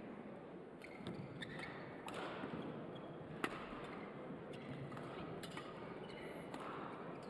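Women's doubles badminton rally: sharp racket strikes on the feather shuttlecock every second or so, mixed with players' footwork on the court, over the steady hum of a sports hall. The sharpest strike comes about three and a half seconds in.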